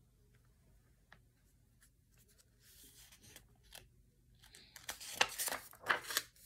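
Pages of a picture book being handled and turned: a couple of quiet seconds, then soft paper rustles and light taps, and louder rustling in the last two seconds as a page is flipped over.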